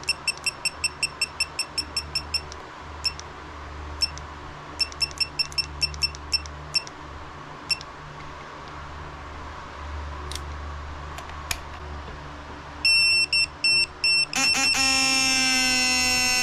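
Digital torque wrench beeping: runs of short electronic beeps, about five a second, then scattered single beeps, over a steady low hum. Near the end it gives broken beeps that run into a loud continuous beep, the signal that the set torque of 40 foot-pounds has been reached.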